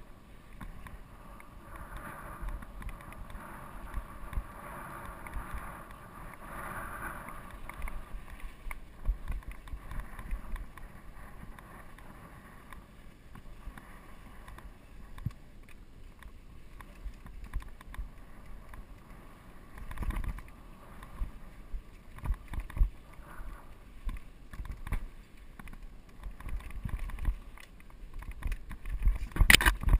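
Steel hardtail mountain bike (GT Peace 9'r) riding a dirt singletrack: tyres on dirt and gravel with the bike rattling and thumping over bumps. There is a loud clatter just before the end over a rocky stretch.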